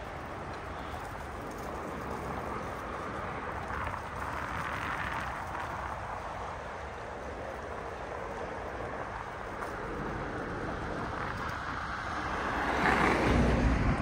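Steady wind and road noise while riding, swelling louder with a deeper rumble about a second before the end.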